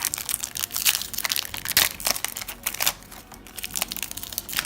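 Foil trading-card booster pack wrapper crinkling and crackling as it is handled, a dense run of sharp, irregular crackles.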